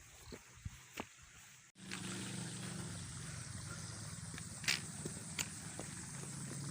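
A vehicle engine running steadily with a low hum, starting suddenly at a cut about two seconds in; two sharp clicks come near the end. Before the cut there are only faint scattered ticks.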